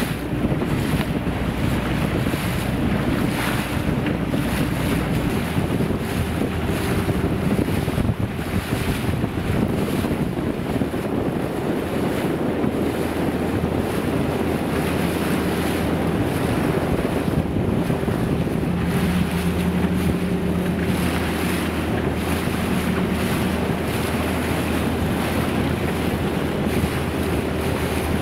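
Steady wind buffeting the microphone over sea water washing and splashing, with a faint low steady hum underneath.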